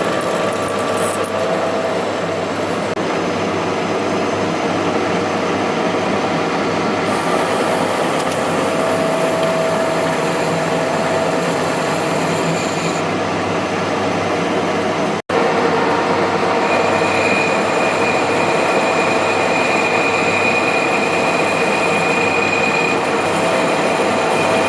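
SN50 metal lathe running and cutting metal: a steady machine noise with a high metallic squeal from the cut. The sound breaks off for an instant about two-thirds of the way through, and the squeal's pitch is different afterwards.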